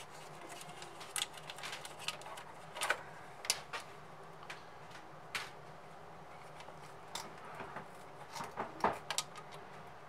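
Scattered light clicks and taps of plastic and metal as an opened PS5's black plastic frame and metal shield are handled and pried at by hand, with a quicker cluster of clicks near the end.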